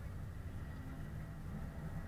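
Subaru Impreza's flat-four engine idling with a steady low rumble.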